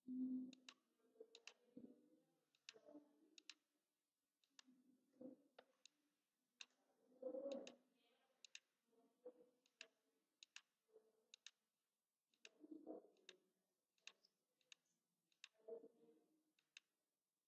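Faint computer mouse clicks, irregular and often in quick pairs, as anchor points are placed one by one with a pen tool. Faint, low, muffled sounds come and go between them, loudest right at the start and about seven seconds in.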